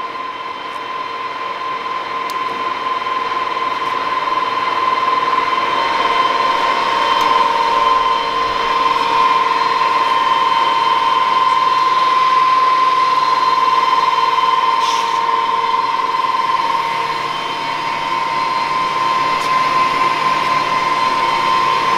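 Summit 28" x 120" engine lathe running under power, its geared head giving a steady whine over mechanical running noise, growing louder over the first several seconds.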